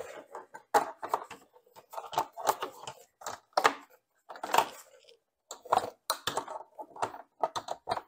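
Irregular knocks and clicks of a motorcycle's rear seat being pressed down and worked into place as its hooks are fitted into their slot.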